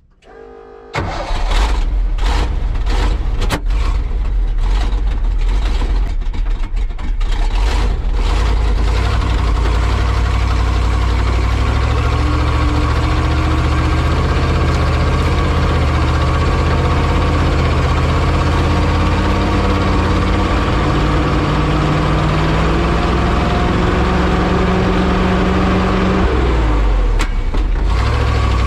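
Farm truck loaded with corn starting up about a second in, its engine running unevenly for several seconds, then pulling away under load with the engine pitch climbing in steps and dipping briefly near the end.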